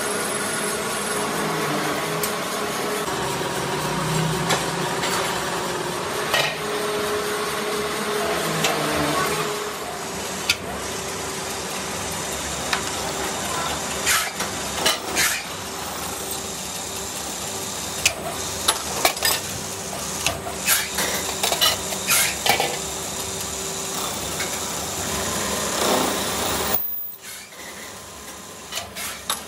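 Metal lathe running with a steady hum while its tool cuts a steel truck wheel nut held in the chuck, with sharp metallic clinks of steel against steel, most of them in the second half.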